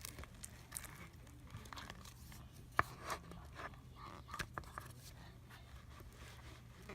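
Faint sticky crackling and scraping of glue slime being mixed and pulled apart, with scattered small clicks and one sharper click near three seconds in.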